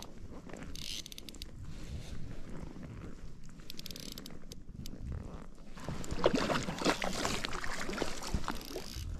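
Hooked fish thrashing and splashing at the water's surface beside the boat, loudest over the last three seconds. Earlier come light ticks and rustling from handling the fly rod and line.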